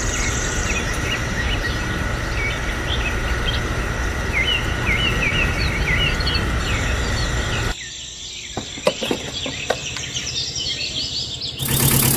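Outdoor ambience of birds chirping over a steady insect drone. About three-quarters of the way through it drops to a quieter background with a few small clicks, and just before the end a loud, steady engine-like idling noise begins.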